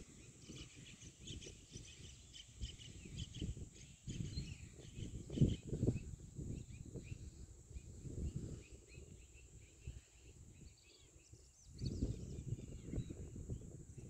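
Many small birds chirping and calling over a steady high insect drone, with wind buffeting the microphone in gusts, strongest about five seconds in and again near the end.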